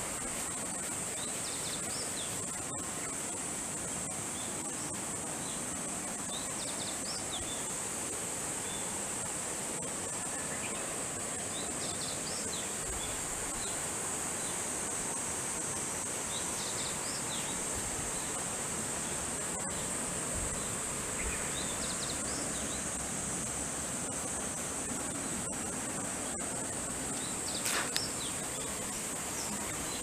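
Steady high-pitched chorus of insects, with short chirps now and then and a brief knock near the end.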